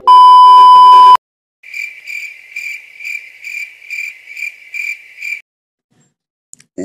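A loud, steady test-card beep for about a second, then a cricket chirping in an even rhythm, a little over twice a second, for about four seconds: the stock 'crickets' effect for an awkward silence.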